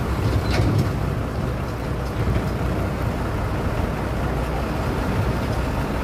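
Mitsubishi Colt Diesel (Canter) dump truck's diesel engine running at low revs as the truck creeps forward through mud, a steady low rumble. There is a brief sharp tick about half a second in.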